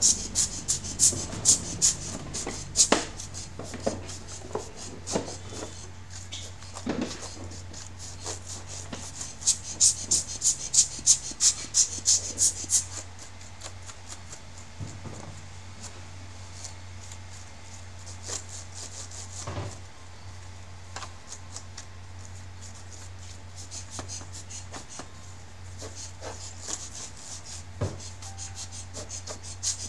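Bristle brush scrubbing across laptop keyboard keys in runs of quick rhythmic strokes, about two a second, with quieter stretches between and a few soft knocks. A steady low hum runs underneath.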